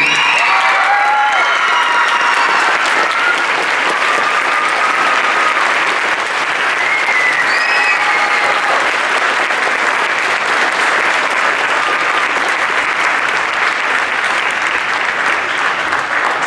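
Audience applauding steadily at the end of a dance, with a few cheers rising above the clapping near the start and again about halfway through.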